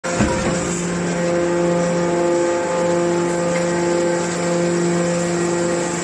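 Hydraulic scrap-metal baler's power unit running with a steady, even hum. There is a short knock just after the start.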